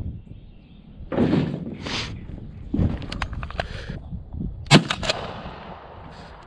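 A shotgun fired once, a sharp crack with a short echo about three-quarters of the way through, with a second shot right at the very end. Before the shots come a few short rustling thumps.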